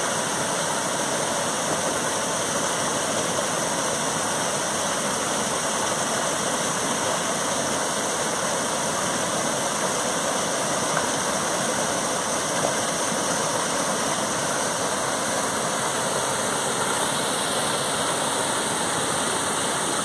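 Small waterfall pouring into a rock pool: a steady, even rush of falling and flowing water.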